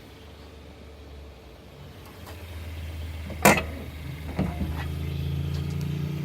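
Suzuki Jimny engine running at low revs, with a sharp click about three and a half seconds in; after that the engine note grows louder and fuller.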